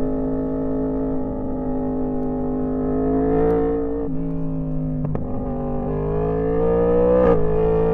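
Yamaha R1M's crossplane inline-four engine running under load, its pitch climbing slowly and then dropping sharply twice as it changes gear.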